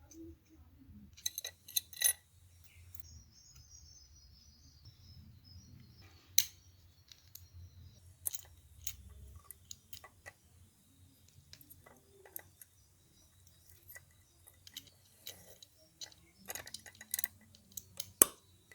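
Small metal padlock parts being handled, giving scattered light clicks and clinks, with a few sharper taps: about two seconds in, around six seconds in and near the end.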